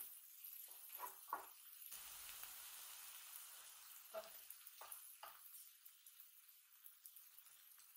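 Okonomiyaki frying on an electric hot plate with a faint steady sizzle. The spatulas working the pancakes against the plate make a few short sounds in the first half.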